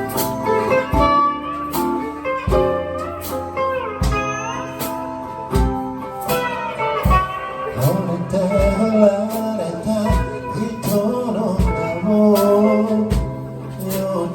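Live band playing an instrumental blues-rock passage: a lead guitar line with gliding, bending notes over bass and a steady drum beat.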